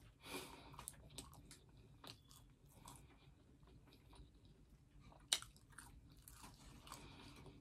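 A person chewing and crunching crisp, slightly hard French fries close to the microphone: faint, scattered crunches, with one sharper crunch about five seconds in.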